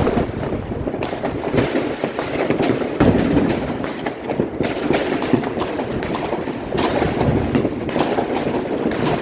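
Fireworks and firecrackers going off, many sharp bangs and crackles coming irregularly and overlapping one another over a dense background of distant bangs.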